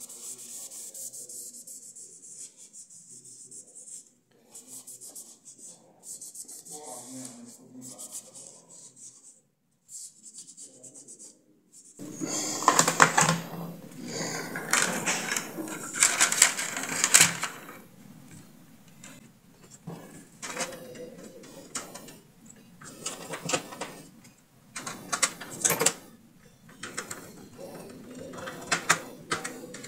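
Plastic speedometer cluster parts being handled by hand: rubbing and clicking as the dial face is wiped and fitted onto the meter, with louder clicks and rubs in the second half.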